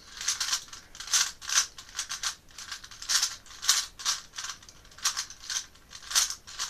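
Plastic 3x3 Rubik's cube being turned rapidly by hand, its layers clicking and clacking in an irregular stream of a few snaps a second as a move sequence is run through at speed.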